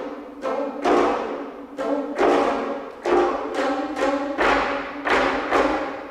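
Ensemble of four geomungo (Korean six-string zithers), each tuned differently, played with bamboo sticks in sharp plucked strokes about twice a second. Each stroke sounds a cluster of pitches that rings and fades before the next.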